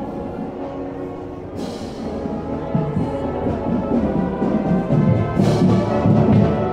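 Marching band playing brass and drums, growing louder.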